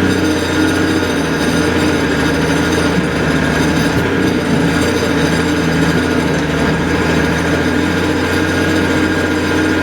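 A large engine running steadily and loudly, with no change in pace.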